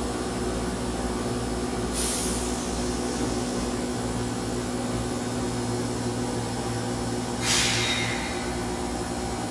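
An Osaka Metro 20 series subway train standing at the platform, its onboard equipment humming steadily. Two short hisses of released air come from the brakes, one about two seconds in and a louder one near the end.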